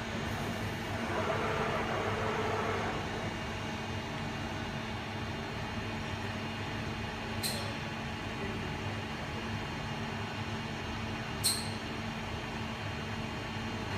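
Pama ACC 127 P CNC boring machine running with a steady electrical hum; about a second in a louder whirring swells for two seconds, as of an axis or spindle moving, and two short sharp clicks come a few seconds apart later on.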